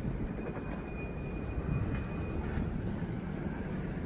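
Low, steady rumble of an Alsthom diesel-electric locomotive running in the distance.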